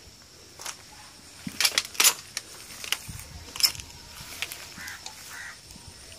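Footsteps crunching on dry leaves and twigs, a handful of sharp crackles and snaps, the loudest about two seconds in.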